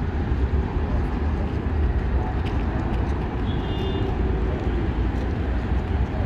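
Steady city traffic noise, an even rumble of cars and buses. A brief high-pitched tone sounds about halfway through.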